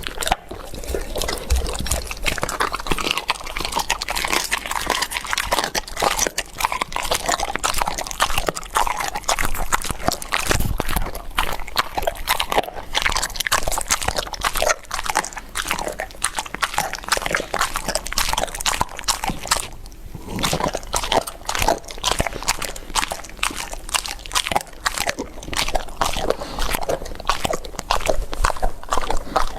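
Dogs crunching and chewing food, a dense run of quick cracking bites.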